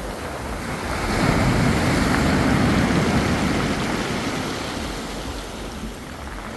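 Sea waves washing onto the beach. The surf swells about a second in and slowly eases off toward the end.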